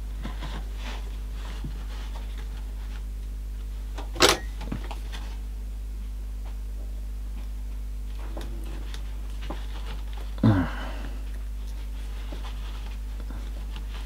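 Small handling clicks of wires, a metal USB plug and a soldering iron over a steady low electrical hum, with one sharp loud click about four seconds in and a brief low murmur about ten and a half seconds in.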